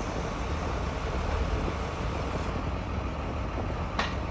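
Crane's engine running steadily with a low rumble while it lifts roof trusses, with one sharp click about four seconds in.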